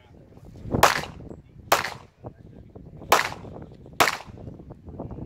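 Four pistol shots fired in two pairs, each pair about a second apart, every shot followed by a short echo.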